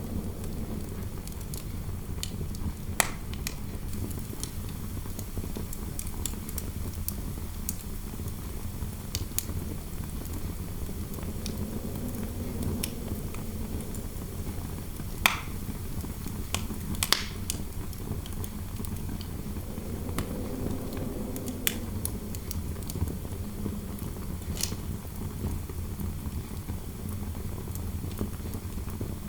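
Wood fire crackling in a fireplace, with scattered sharp pops over a steady low rumble, while indoor wind howls and swells twice.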